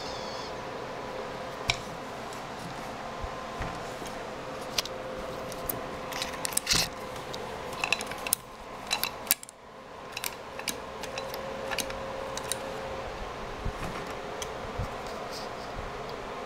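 Handling noise from a Motorcraft 2150 two-barrel carburetor being turned over by hand: scattered light clicks and metal taps, with a busier cluster of louder knocks in the middle. A steady hum runs underneath.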